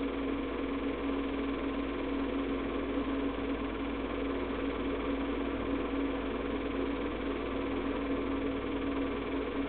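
Keystone Dual K-539 8mm/Super 8 film projector running steadily: a constant mechanical hum that does not change.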